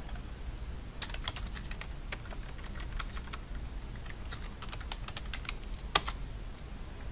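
Typing on a computer keyboard: two quick runs of keystrokes, then one single louder keystroke about six seconds in.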